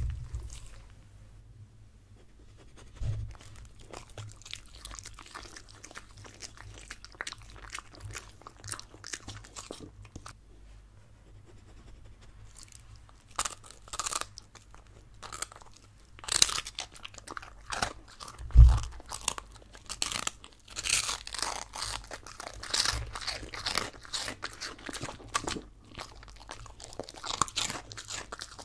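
Samoyed biting and crunching a crunchy mini toast: sharp, close crunches, light and scattered at first with lip-licking, then dense and loud through the second half. A heavy low thump about two-thirds of the way in.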